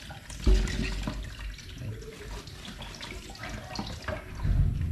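Water running and splashing, with small knocks and clicks of handling.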